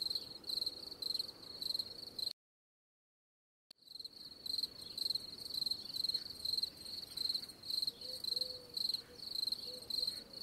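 Crickets chirping in a steady high-pitched rhythm, about three chirps a second. The sound cuts out completely for about a second and a half a couple of seconds in, then resumes unchanged.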